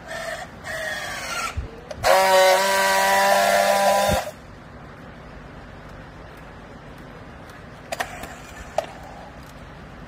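Battery-powered handheld strapping tool working a plastic strap around a bale: short motor runs while tensioning the strap, then a loud steady buzz for about two seconds that cuts off sharply as the tool seals the strap. Two sharp clicks near the end.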